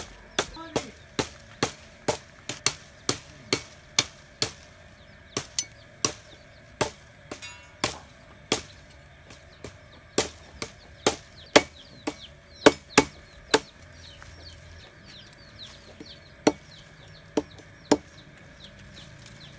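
Machete blade chopping a green tree branch against a wooden log: sharp strikes about two a second, thinning out in the second half with a pause, the last ones near the end. Chickens clucking in the background.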